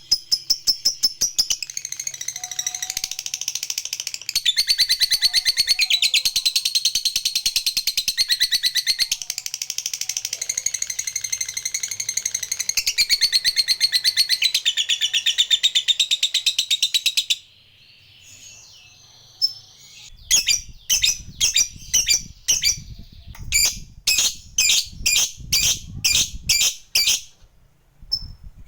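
Lovebird giving its long, rapid chattering trill ('ngekek panjang'), the prized song of a fighter lovebird, unbroken for about 17 seconds. After a short pause it goes on with a series of separate sharp chirps, about two a second.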